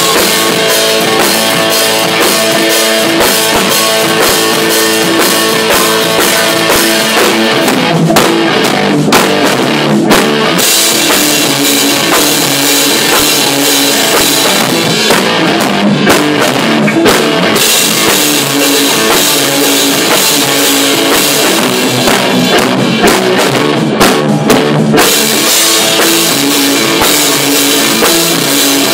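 A rock band playing loudly in a rehearsal room: a drum kit with cymbals driving a steady beat under amplified electric guitars. The cymbals drop out briefly a few times.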